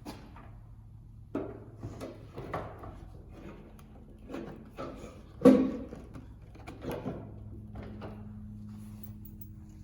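Plastic and metal knocks and clunks of a headlight assembly being handled and fitted into a pickup's front end, an irregular string of strikes with the loudest clunk about five and a half seconds in, over a low steady hum.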